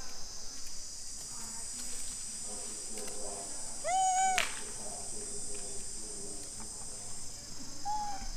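Steady high-pitched drone of insects. A loud, short, arched tonal animal call comes about four seconds in, with a sharp click right after it, and a fainter call comes near the end.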